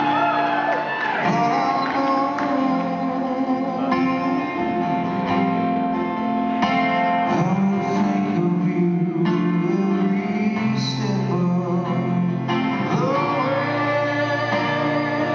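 A man singing solo with his own acoustic guitar, a live acoustic performance of a ballad. The voice bends and holds long notes over steady strumming.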